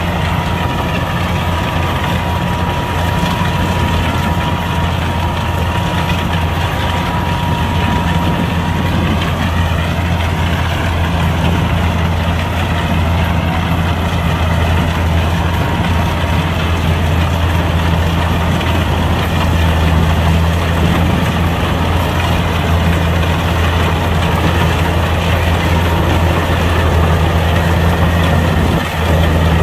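Kubota combine harvester's diesel engine running steadily, a heavy low drone with a faint thin whine over it during the first half.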